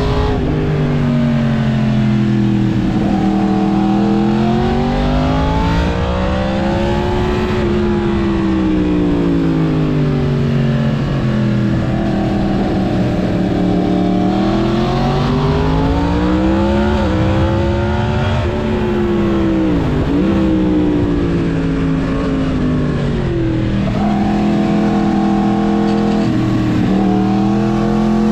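Yamaha MT-10 crossplane inline-four through a Mivv full exhaust, ridden hard. The engine pitch climbs and falls over and over as it accelerates, shifts and rolls off, with a sharp drop and quick rise about twenty seconds in.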